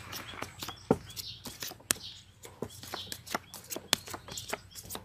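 Playing cards being shuffled and dealt onto a mat: an irregular run of sharp clicks and slaps, a few of them louder than the rest.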